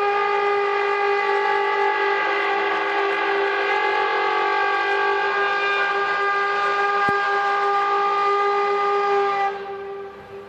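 Bulldozer blade scraping finished concrete, giving a loud, steady tone with many overtones, the trumpet-like noise taken for strange sounds in the sky. It holds one pitch, then fades away about nine and a half seconds in.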